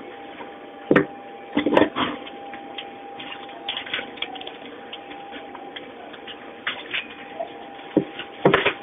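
Scattered knocks and rustles of cheese blocks being handled on a work counter, over a steady machine hum.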